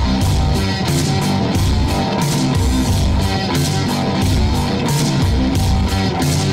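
Rock music with guitar over a steady, driving drum beat.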